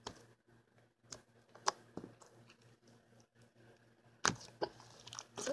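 Slime being squeezed and poked by hand: a few faint, scattered wet clicks and pops, with a pause in the middle.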